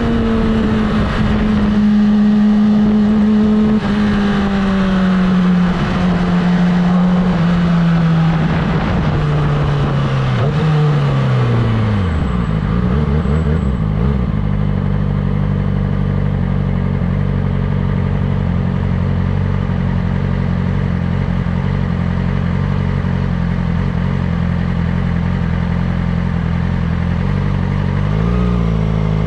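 Yamaha R6 inline-four engine under way with wind rush, its pitch falling steadily as the bike slows to a stop, then idling evenly. Near the end the throttle is blipped once, a quick rise and fall in revs.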